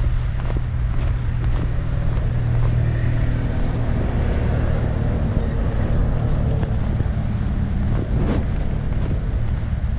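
A motor vehicle passing close by on the street, its engine and tyre noise swelling through the middle and fading again, over a steady low wind rumble on the microphone and a few footsteps.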